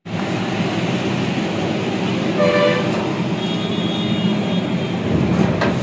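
Steady road traffic noise, with a short horn toot about two and a half seconds in and a higher, longer tone around four seconds in.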